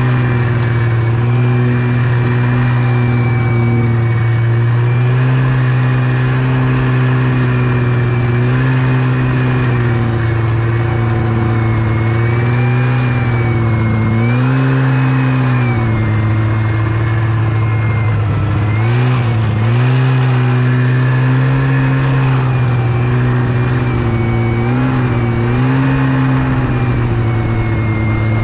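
Yamaha Venture snowmobile engine running under way at a steady pitch, dipping briefly and coming back up several times in the second half as the throttle is eased and opened again.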